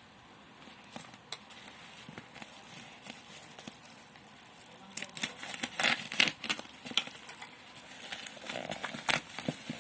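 Packaging being handled during an unboxing: crinkling, rustling and sharp clicks. It is quiet at first and becomes busy about halfway through.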